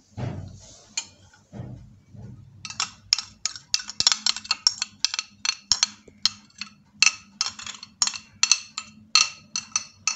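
Metal spoon clinking and scraping against a glass bowl, a quick run of sharp ringing taps at about four a second, as thick foamy yeast mixture is scraped out into a bowl of flour. Before that, for the first couple of seconds, soft plops of the mixture pouring in.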